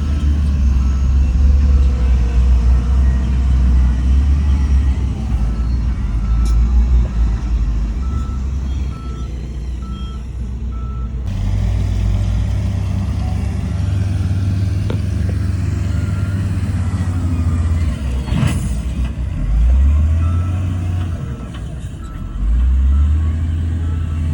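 Diesel engines of heavy earthmoving machinery running under load, with a reversing alarm sounding evenly spaced beeps for the first half and again near the end. A brief hiss comes about three quarters of the way through.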